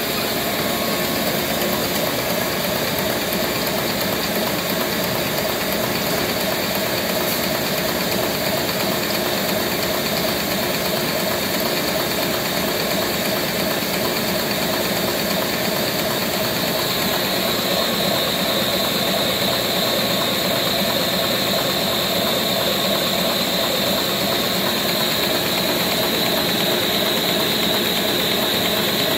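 Bertoli HA33037 high-pressure homogenizer running: a steady mechanical drone with hiss from its pump and homogenizing valve. Past the middle a high, steady whine joins in and holds.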